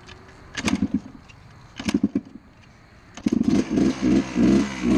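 Yamaha dirt bike engine being started: it coughs briefly twice without catching, then fires about three seconds in and keeps running, revved in rapid blips. The hard starting is put down to the choke having been left on.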